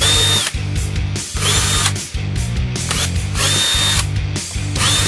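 Power drill run in about four short bursts, each spinning up with a brief whine and then stopping: pre-drilling holes in oak. Background music plays underneath.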